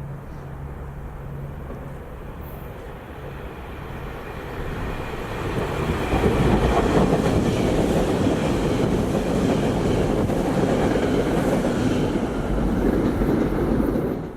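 SEPTA Regional Rail electric train passing: the sound builds over the first several seconds, stays loud and steady while the cars go by, then cuts off abruptly at the end.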